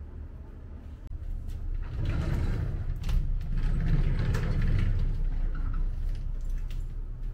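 Sliding wardrobe door rolling along its track, a rumble that swells about two seconds in and fades a few seconds later, with a few light clicks.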